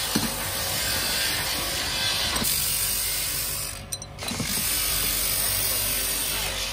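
Electric grinding wheel running with a motorcycle brake shoe's friction lining pressed against it and ground to shape, a steady grinding with a few sharp clicks. The sound dips briefly about four seconds in.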